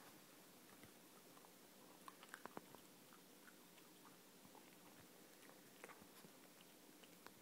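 Miniature dachshund chewing and biting into a pupcake: faint chewing with scattered clicks, including a quick run of about four sharper bites a couple of seconds in.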